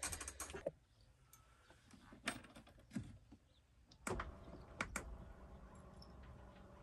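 Scattered clicks and knocks of latches and fittings being shut in a motorhome as it is made ready to drive, with a faint steady hum setting in about four seconds in.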